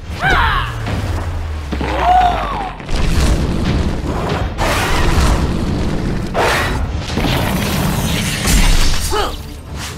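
Cartoon battle sound effects: deep booms and crashing impacts over a steady low rumble, with a few short wavering cries, over background music.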